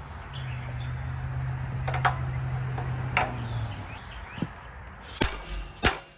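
Workshop noise: a steady low mechanical hum for about three and a half seconds, with sharp clicks and knocks of metal throughout, the two loudest knocks near the end.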